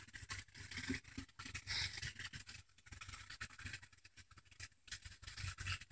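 Handling noise on a hand-held phone's microphone: fingers rubbing and scratching on the phone, with many small irregular knocks and a low rumble.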